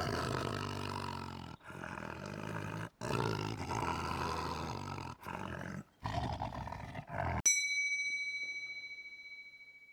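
A string of short animal roars, each about a second or two long and cut off abruptly before the next begins. About seven and a half seconds in, a single high bell ding is struck and rings out, fading away.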